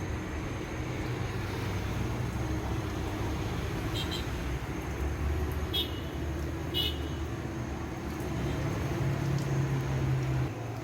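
A steady low rumble, with a few short high clicks about four, six and seven seconds in.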